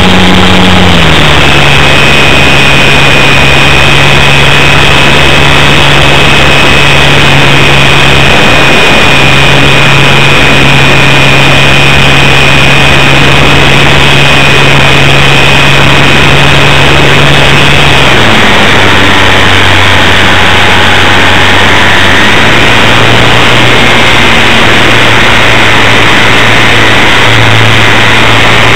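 Electric motor and propeller of an RC Super Cub float plane in flight, heard loud and close from on board, a steady hum and whine over a rushing noise. The pitch drops about a second in as the throttle eases, drops again around 18 seconds, then rises a little a few seconds later.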